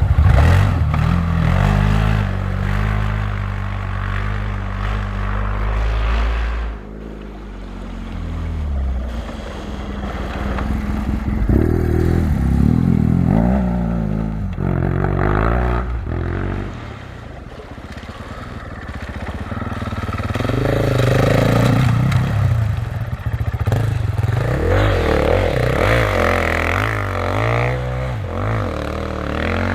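Rally-raid competition vehicles' engines running hard on a special stage. A deep steady engine note drops away about seven seconds in, followed by engines revving up and down several times as vehicles pass.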